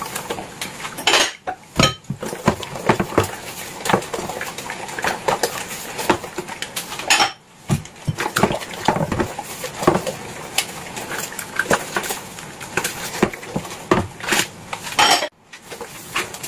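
Dishes and cutlery clinking and clattering as they are handled one after another, in many irregular knocks with a few brief pauses.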